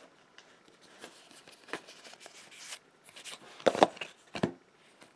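Magic: The Gathering trading cards being slid and flipped through by hand: soft card-on-card rustling, with a few sharper clicks a little past the middle.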